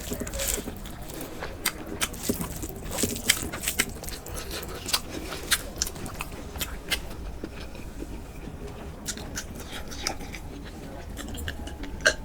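A person chewing and biting food close to the microphone, with many short sharp mouth clicks, coming thickly at first and thinning out after about seven seconds.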